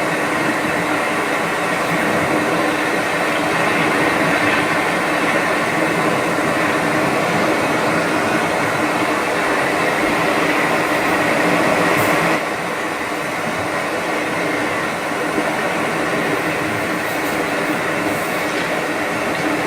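Steady hum of white-noise-like sound from a Hatch sleep sound machine, drawn out without pause, with a small sudden drop in level about twelve seconds in.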